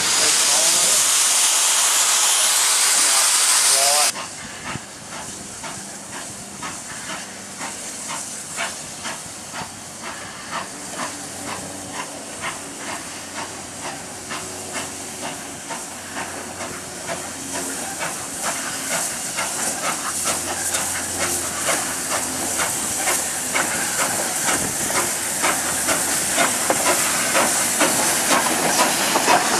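Steam hissing loudly from a steam locomotive. It cuts off about 4 seconds in, giving way to an R class steam locomotive moving slowly along yard track, a run of irregular clanks and clicks that grows louder as it draws near.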